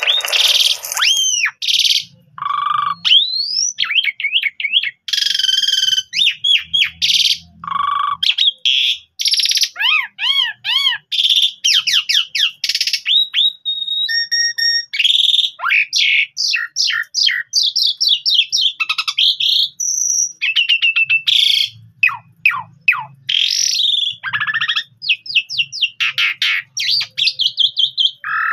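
Asian pied starling (jalak suren) singing a long, varied song with only short breaks: clear whistles, rising and falling glides, quick runs of sweeping notes, and harsh scratchy bursts.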